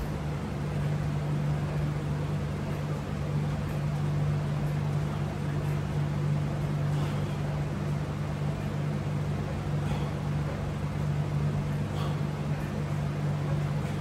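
Window air conditioner running with a steady low hum and fan rush, with a few faint clicks over it.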